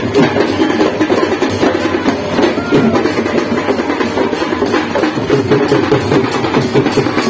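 Dhol barrel drums beaten with sticks in a fast, dense rhythm for street dancing.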